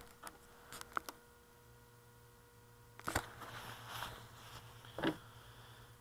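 Handling noise picked up close on a small onboard camera's microphone: a few sharp knocks and bumps, the loudest about three and five seconds in, with scratchy rubbing of clothing or the airframe between them. Underneath, a faint steady low hum begins about a second and a half in.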